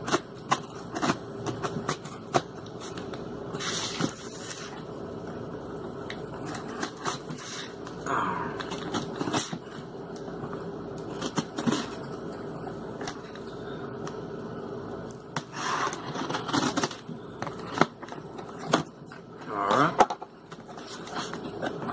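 A small blade scraping and slitting the packing tape on a cardboard shipping box, with many small clicks and scuffs of the cardboard and several louder ripping rasps as the tape gives way.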